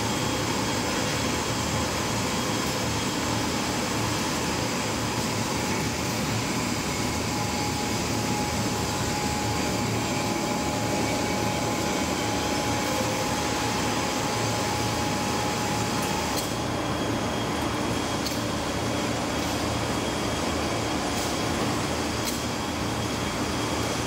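Steady hum and drone of a steel rebar rolling mill's running machinery, with a steady whine over it that fades about two-thirds of the way in.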